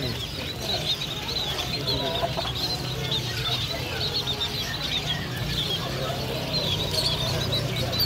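A crowded cage of scaly-breasted munias chirping nonstop, many short high calls overlapping, over a steady low hum.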